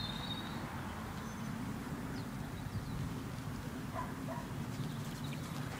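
A horse's hoofbeats on the sand of an arena, faint under a steady low rumble of wind on the microphone.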